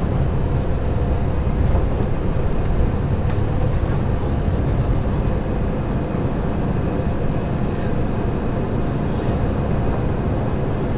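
Steady, even drone inside a jet airliner's cabin: engine and airflow noise, heaviest in the low range, with a few faint steady tones.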